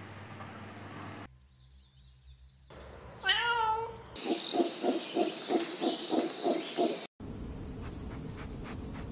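A cat meows once, falling in pitch, about three seconds in; it is the loudest sound. About three seconds of short pulsing calls, about three a second, follow. After a cut there is steady outdoor noise with faint ticks.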